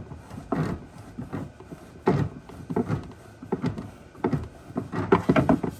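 A series of irregular knocks and clunks, about two a second, like objects being handled or cabinet doors worked in a small room.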